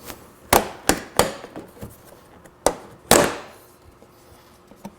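Plastic body panel of a Can-Am Spyder being pulled off by hand: a series of sharp snaps and knocks as its clips let go, the loudest about three seconds in.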